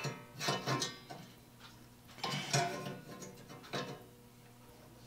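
A plier-type saw set clicking as it is squeezed and released on a pruning saw's teeth, bending each tooth to set it. A few sharp metal clicks come in pairs about a second apart, each with a short ring from the thick steel saw plate.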